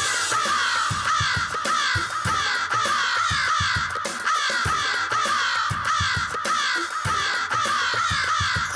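Crows cawing in a dense, continuous chorus, overlapping calls that each fall in pitch, several a second.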